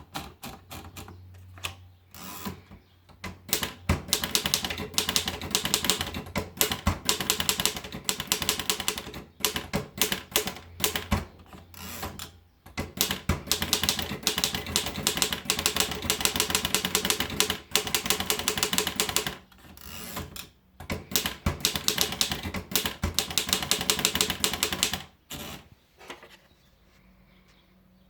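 Erika model 5 portable typewriter being typed on: quick runs of sharp key strikes with a few short pauses, stopping a few seconds before the end.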